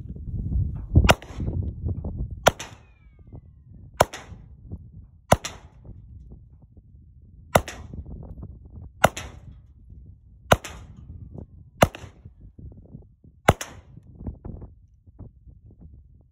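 Nine handgun shots fired one at a time, about a second and a half apart, with a longer pause after the fourth; each is a sharp crack that dies away quickly.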